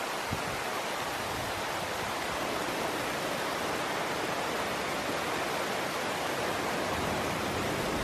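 Running water from a forest stream: a steady, even rushing.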